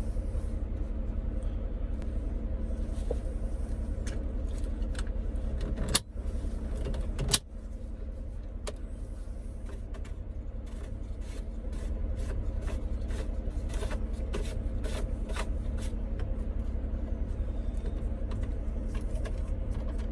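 Scattered clicks of the Holden Commodore VZ's dashboard heater and air-conditioning control switches being pressed and tried, over a steady low hum. Two louder clicks come about six and seven seconds in. The switches turn out not to work.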